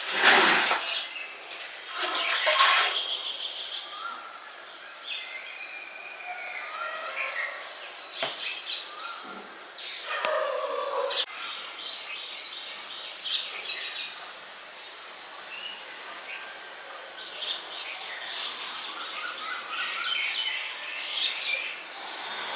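Several birds calling and chirping in short notes and trills over steady outdoor background noise, with a thin high tone held underneath. A loud, noisy burst comes at the very start, and a second one about two seconds in.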